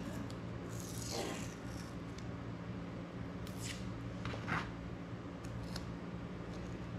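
Hands handling and pressing materials onto a drone frame: a few short scraping rubs, the loudest about a second in with a falling sweep, then two more around the middle. A steady low hum underneath.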